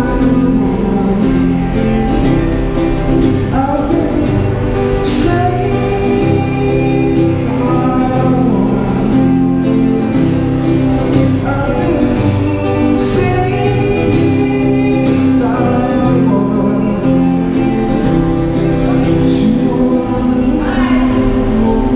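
A man singing to his own acoustic guitar, voice and guitar amplified through a Roland Cube Street EX busking amp.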